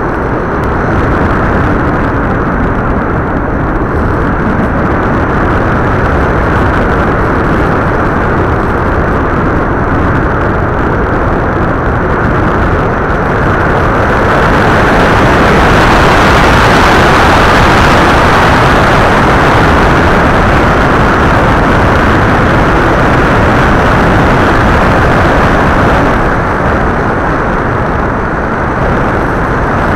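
Steady rush of wind and motor noise picked up by the onboard camera of an FPV model aircraft in flight. About halfway through it swells louder and hissier, then eases off again a few seconds before the end.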